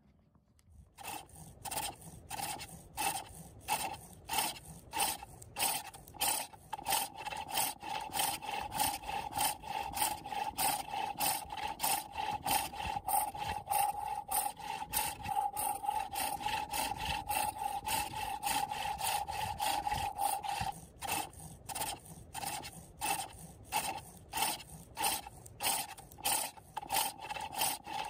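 Wood being cut on a foot-powered pole lathe: a hook tool bites the spinning bowl blank on each down-stroke of the treadle, a rhythmic rasping scrape about twice a second. A steady tone runs under the strokes for much of the time.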